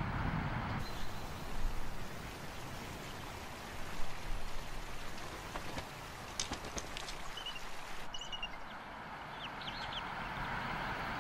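Steady outdoor hiss of wind, with a few faint, high, rising chirps now and then and a short cluster of sharp clicks past the middle.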